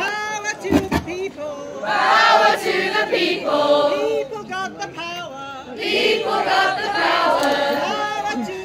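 Crowd of adults and children singing together as a group, in phrases with short breaks, with a brief low thump on the microphone about a second in.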